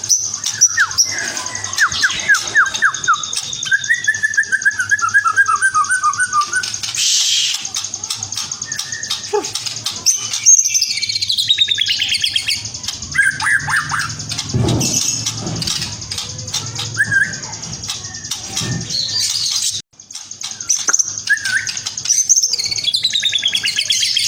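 White-rumped shama singing a long, varied song of rapid trills, sweeping whistles and chattering phrases, broken by a brief gap about twenty seconds in.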